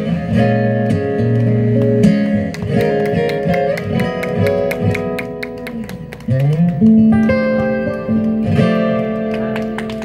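Acoustic guitar playing strummed and picked chords, the closing bars of a song.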